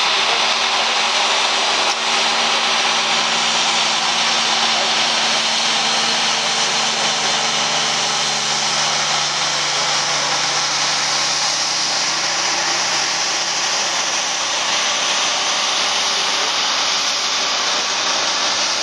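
Helicopter flying overhead: a steady loud turbine and rotor roar with a strong hiss. The lower engine hum fades away about two-thirds of the way through as it moves off.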